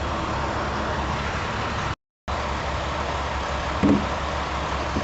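Steady low mechanical hum with an even noise over it, which drops out completely for a moment about two seconds in. A single short knock sounds near the four-second mark.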